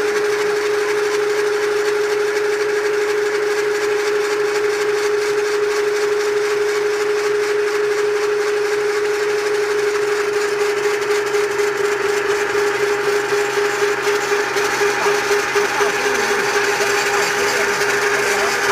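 Electric rotary rock drill running, its motor and gearbox humming at one steady pitch as the spiral auger rod turns into the earth bank. The sound turns rougher and more uneven in the last few seconds.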